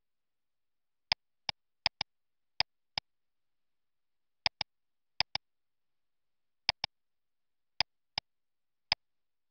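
Computer mouse buttons clicking, about fifteen sharp clicks at an uneven pace, several in quick pairs, like a double-click or a press and release.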